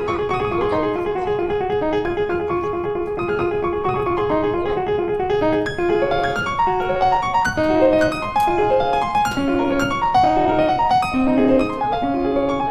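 Background piano music: a steady melody, with the notes getting busier about halfway through.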